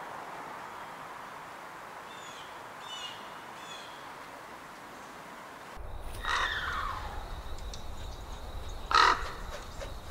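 Crow cawing twice in the second half, harsh calls with the second the loudest, over a quiet woodland ambience with a few faint small-bird chirps earlier on.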